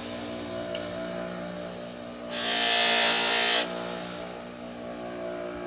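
Bench buffer motor running with a steady hum. About two seconds in, a knife blade is held against the wheel loaded with white buffing compound for about a second, a loud hiss, as the edge is sharpened; then the motor runs on alone.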